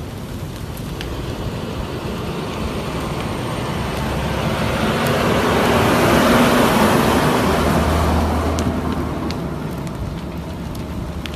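A large vehicle passes close by, its engine and tyre noise swelling to a peak about six seconds in and then fading, with a low engine hum as it goes. Underneath is a steady rush of road noise.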